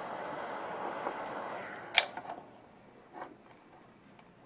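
Heat gun blowing hot air steadily onto heat-shrink tubing. About halfway through there is a sharp click and a few smaller clicks, and the airflow dies away.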